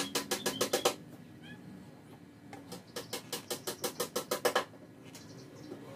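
Two quick runs of light taps: fingers patting on the speaker's paper spider and voice-coil former. The first run is in the first second and the second lasts about two seconds, a little past the middle, at roughly six to eight taps a second.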